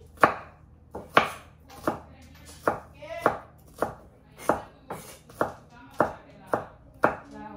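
Kitchen knife chopping a red onion on a cutting board: a steady run of sharp knocks, a little under two a second.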